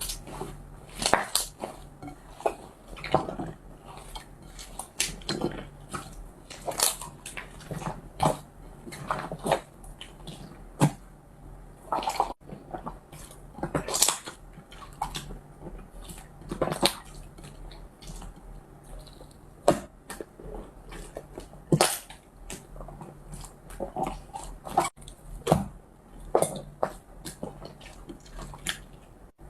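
Slime being squished and pressed by hand, making irregular wet clicks and pops, a sharper one every second or so.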